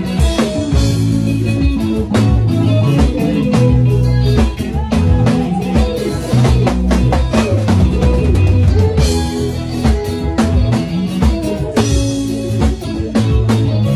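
Band music: a drum kit played with frequent sharp snare and cymbal hits and kick drum, over guitar and sustained low bass notes.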